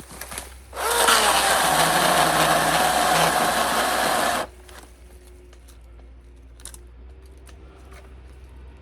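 Milwaukee M18 battery-powered electric chainsaw revving up and running hard for about four seconds, its motor pitch sagging slightly, then cutting off suddenly.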